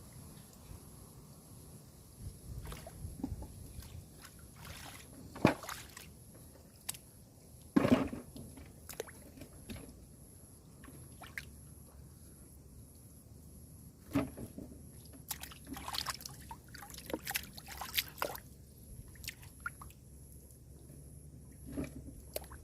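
Water sloshing and splashing irregularly, with scattered knocks and clicks; the two loudest splashes come about five and eight seconds in.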